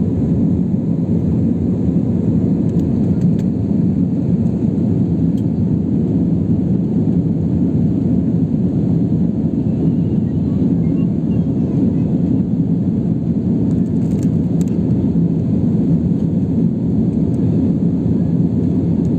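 Steady low roar of an Airbus A320-family jet airliner's engines and rushing air, heard from inside the passenger cabin during the climb after takeoff.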